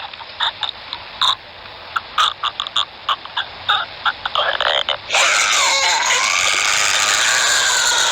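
Synthesized emergency-alert-style alarm audio: about five seconds of irregular short electronic blips, then a harsh, noisy alarm tone starts suddenly, one pitch sliding down and then holding steady alongside several others.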